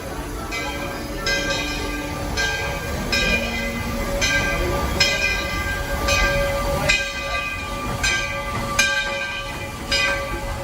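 Steam locomotive's bell ringing in a steady rhythm, roughly four strikes every three seconds, over the train's running rumble.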